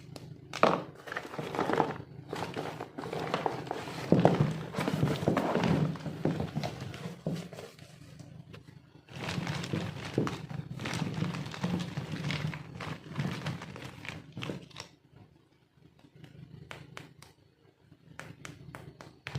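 Handling noise from plastic toy packaging and pieces being unboxed: rustling with many sharp clicks and knocks in two long busy stretches, then a few scattered clicks near the end.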